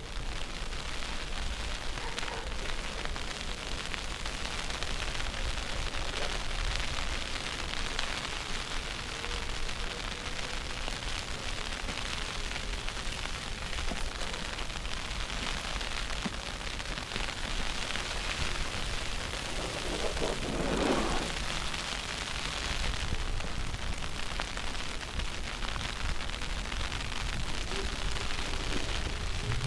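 Steady hissing outdoor street ambience in a snowstorm, with a short pitched sound about two-thirds of the way through.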